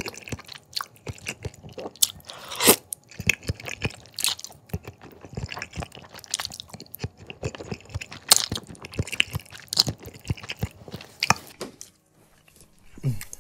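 Close-up wet chewing and slurping of thick, sauce-coated jajangmyeon noodles, a steady run of mouth clicks with several sharper, louder moments. The sounds stop briefly near the end.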